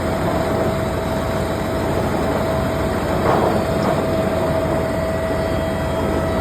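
Engine of a mobile road repair and patching machine running steadily, with a constant whine over the engine noise.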